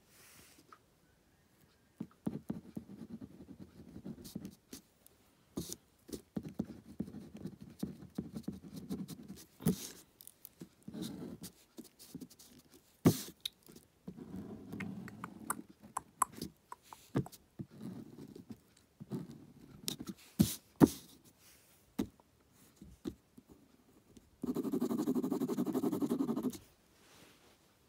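Ballpoint pen scratching across paper on a clipboard in short runs of strokes, with scattered sharp taps and clicks. Near the end there is a louder, steady stretch of about two seconds.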